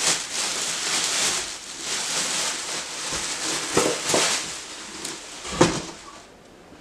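Clear plastic bag wrapping crinkling and rustling as it is pulled off a chop saw, with a few knocks as the saw is lifted out of its cardboard box. The loudest knock comes about five and a half seconds in.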